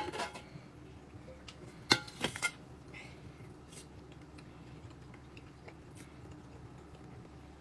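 A few light clinks and taps of tableware as a meal is eaten: three sharp clicks close together about two seconds in, and faint scattered ticks over quiet room tone.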